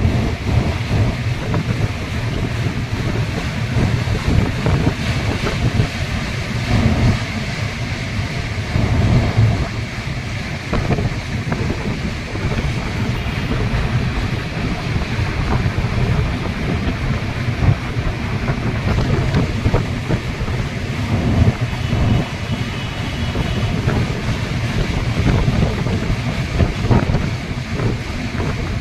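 A passenger train crossing a steel truss rail bridge overhead: a steady low rumble with irregular clattering, mixed with wind noise on the microphone.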